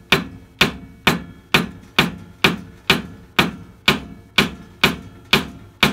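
Hammer tapping steadily, about two blows a second, driving a wooden last down into a balsa space derby rocket body held in a wooden block.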